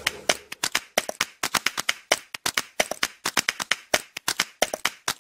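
A quick, irregular run of sharp claps, several a second, that stops abruptly.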